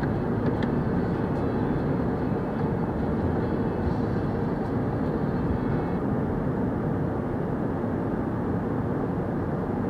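Steady, muffled rumble of a tunnel car wash running, its water jets and spinning brushes working on the car ahead, heard through a closed car's cabin.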